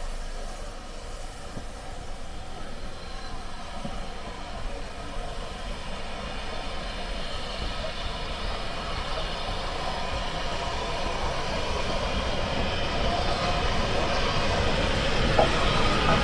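A train approaching and running into the station platform, its rumble growing steadily louder.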